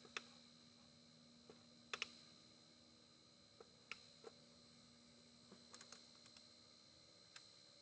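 Near silence broken by about a dozen faint, irregular clicks and taps, the loudest about two seconds in and near four seconds in, over a faint steady hum.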